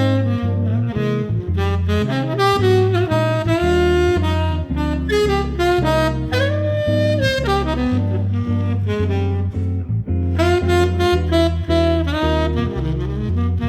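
Background jazz music: a saxophone playing a melody over a walking bass line.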